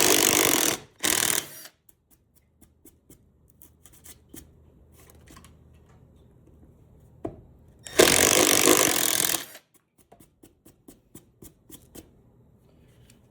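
Power drill running in short bursts, boring holes in the tabletop for threaded inserts: two brief runs at the start and a longer run of about a second and a half about eight seconds in, with small clicks and knocks of handling between.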